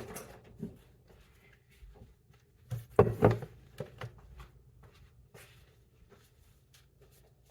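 A few short knocks and taps of kitchen items being moved and set down on a counter, the loudest about three seconds in, with quiet between.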